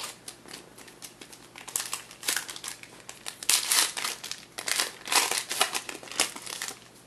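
A trading-card pack wrapper being torn open and crinkled by hand: a run of short rustling bursts that thickens after a couple of seconds and stops just before the end.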